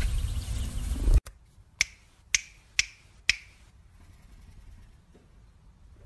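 A low rumble of outdoor noise that cuts off suddenly about a second in. Then four sharp clicks come about half a second apart, each with a brief falling ring, and faint quiet noise follows.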